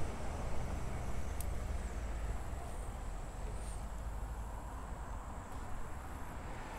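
Low rumble and hiss of passing road traffic, with a few faint high bird chirps.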